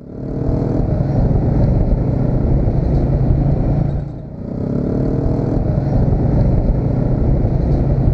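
Honda motorcycle's engine running under way, heard from the rider's seat, with road noise and surrounding traffic. It eases off briefly about four seconds in, then picks up again.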